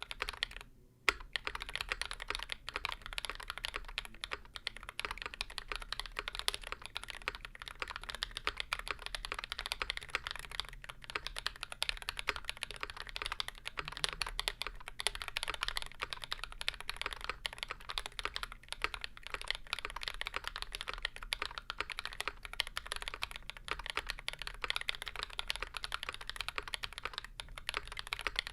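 Fast, continuous typing on a custom mechanical keyboard with YOK Burgundy switches in a 3 mm aluminium plate and GMK keycaps; the keystrokes are clacky, with hard bottom-outs. A brief pause about a second in ends with one sharp, louder keystroke.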